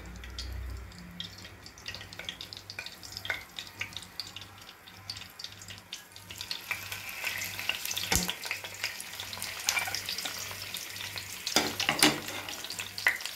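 Stuffed eggplants shallow-frying in oil in a non-stick pot: a crackling sizzle that grows louder about halfway through. A few knocks are heard as more eggplants are set down in the pot.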